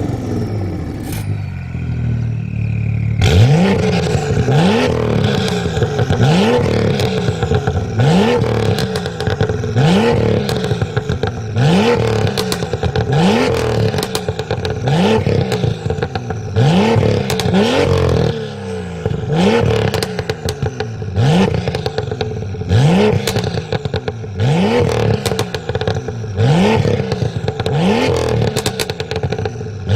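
BMW M2's turbocharged straight-six through an Fi aftermarket exhaust, idling briefly and then revved in short throttle blips over and over, about one every second and a half. Each blip rises quickly and falls back, with crackles and pops from the exhaust.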